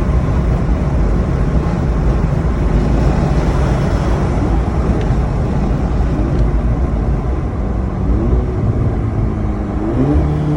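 Volkswagen Golf GTI Mk6 on the move, its running and road noise a loud, steady rumble. In the last few seconds a humming tone keeps jumping up in pitch and then slowly sinking.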